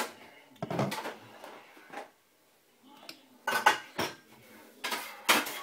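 Clinks and clatters of a Nespresso milk frother jug and its lid being handled and set down, in several separate knocks, the loudest about three and a half seconds in.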